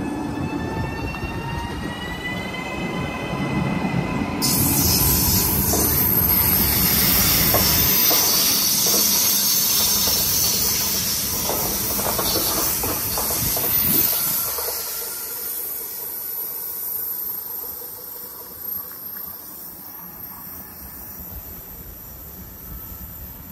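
Trenitalia 'Rock' double-deck electric multiple unit pulling out past the platform: its traction motors give a rising whine as it gathers speed, then a loud hiss and wheel-on-rail noise set in about four seconds in as the cars roll by. The sound fades after about fifteen seconds as the train draws away.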